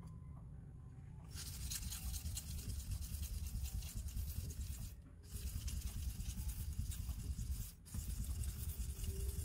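Small deba kitchen knife blade stroked rapidly back and forth on a wet whetstone: a steady gritty scraping that starts about a second in and pauses briefly twice. The edge is being reground after a chip and worked until a burr forms.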